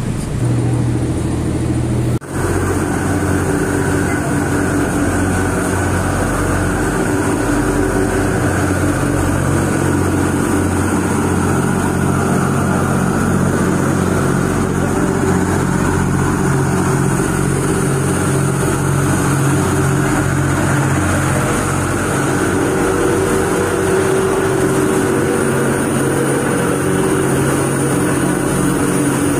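Ro-Ro car ferry's diesel engines running under way: a steady, loud low drone with wind and water noise over it.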